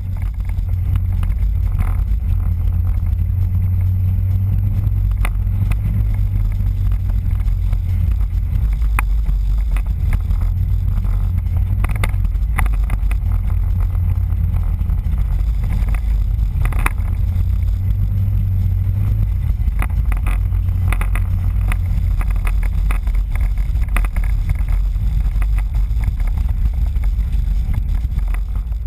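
Car driving on a snow-covered road: a steady low rumble of engine and tyres, with scattered knocks and clicks throughout.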